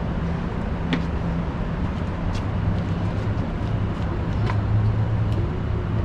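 Steady low mechanical rumble with a constant hum, from equipment running at a tandoor cooking station. A few light clicks and taps come through, about a second in, again past two seconds and near the middle.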